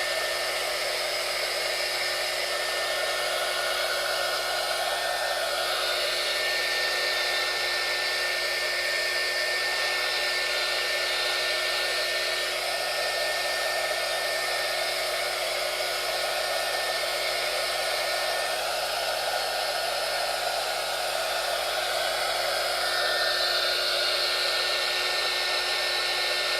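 Small electric heat gun running steadily, its fan blowing hot air in an even rush with a faint steady motor whine, the airflow sound wavering slowly as it heats heat-shrink tubing. It is a low-powered gun, described as weak for serious work.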